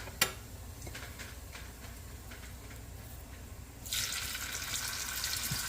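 A sharp click, then a kitchen tap turned on about four seconds in, water running in a steady rush into the sink.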